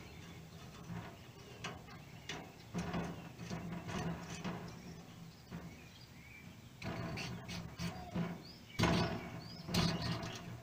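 Irregular clicks and knocks of metal parts being handled as the pump plunger assembly of a Coleman 426D camp stove is worked back into its pump tube by hand. The loudest knocks come near the end.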